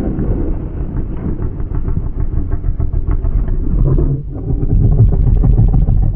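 Homemade fictional blue dragon sound effect: a loud, low, continuous rumble that dips briefly about four seconds in and then swells again.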